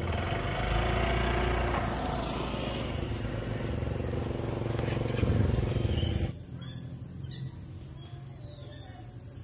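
An engine running steadily, which cuts off abruptly about six seconds in, leaving a quieter outdoor background.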